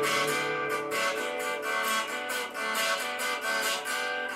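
Guitar strummed in a steady rhythm, about four strums a second, playing the instrumental passage between sung lines of a song.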